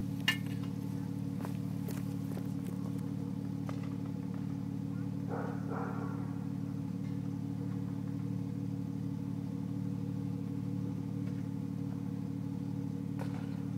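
Porsche 997 Turbo's twin-turbo flat-six with a Cargraphic aftermarket exhaust idling steadily. A short click comes right at the start.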